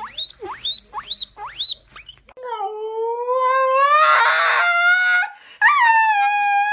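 Guinea pig wheeking: short, high squeaks that sweep upward, about two a second. Then a husky howls, one long howl rising slightly in pitch and a second howl starting with a quick upward glide near the end.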